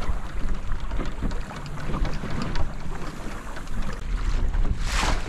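Gusty wind on the microphone of a small sailing canoe, with choppy water slapping and splashing against the hull, and a louder rush near the end.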